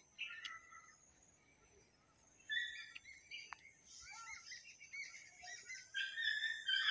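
Small birds chirping and calling in quick, twittering notes: a few calls at the start, a lull, then renewed chirping that grows busier toward the end.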